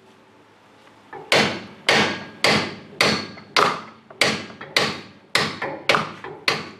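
Hammer blows on the steel strut rod bolt, driving it through its mount. Metal on metal, about eleven evenly paced strikes roughly two a second, each ringing briefly, starting after a quiet second.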